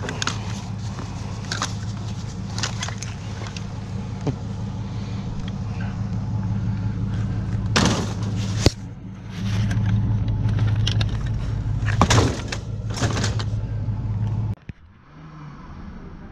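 Truck engine idling steadily, with sharp clanks and rattles of a metal baby stroller and high chair being thrown onto a scrap-loaded truck bed, loudest about halfway through and again a few seconds later. Near the end the engine sound drops away suddenly, leaving a quieter hum.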